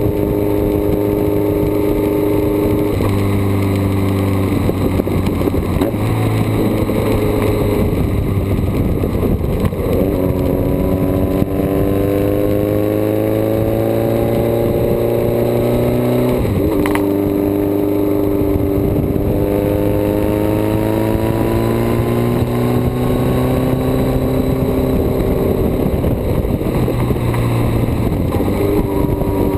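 Motorcycle engine running under way on the road, its pitch climbing slowly as it accelerates and dropping suddenly at gear changes about a third and about halfway through.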